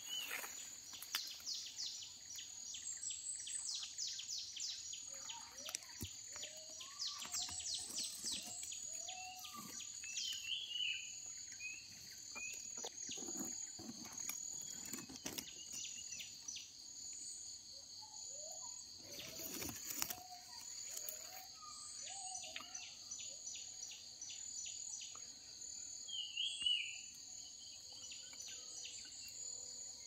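A steady high-pitched insect chorus from the forest, with birds giving scattered short chirps and whistles over it and a few brief rustles.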